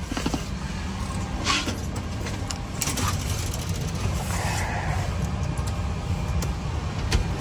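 Steady low machine rumble inside a parked Boeing 737's powered-up flight deck, with a few sharp handling clicks and the rustle of a rain jacket as someone moves about.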